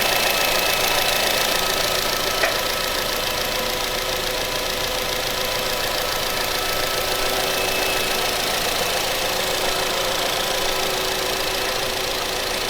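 A car engine idling steadily, with a fast even ticking and a brief click about two and a half seconds in.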